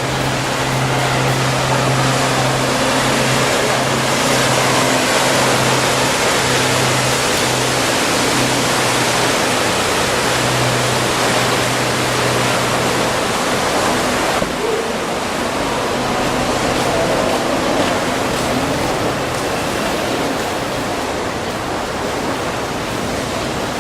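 Steady rush of water and wind with a low, steady engine hum underneath, the sound of a wakeboard tow boat running at speed.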